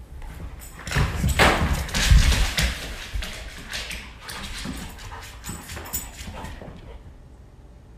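A dog's paws pounding and scrabbling on a hardwood floor as it runs fast around the room. The footfalls are loudest between about one and three seconds in, then grow lighter and stop near the end.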